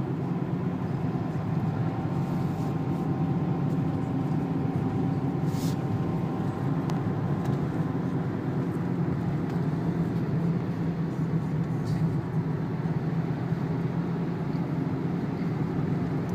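Renault 2.0-litre turbo-diesel car running steadily at low speed on a wet track, heard from inside the cabin: an even engine drone under road and tyre noise.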